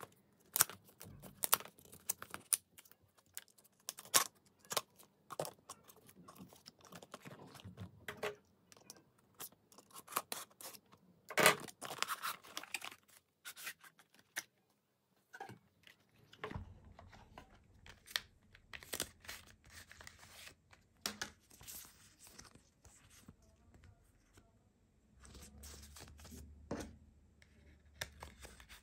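Cardboard retail box being opened and handled by hand: a run of irregular scrapes, taps and crackles of card and paper as the inner tray slides out and the paper manual and card sleeve are lifted out.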